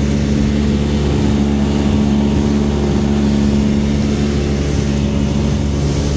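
Small motorboat's engine running steadily at cruising speed, about 16 knots: an even hum under a steady rush of noise.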